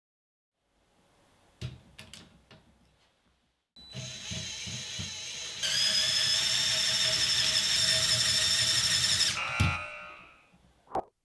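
Small electric motor of a weighted LEGO train whirring as it drives up a steep track, with clicks of the train being set on the rails beforehand. The motor gets louder with a steady high whine about six seconds in and cuts off suddenly about nine and a half seconds in; the climb fails.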